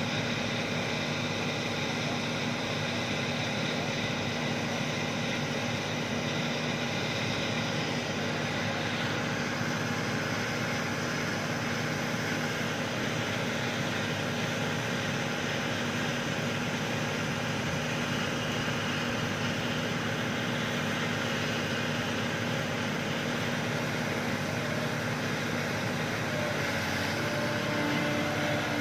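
Heavy diesel engine running steadily at an even pitch, with no revving.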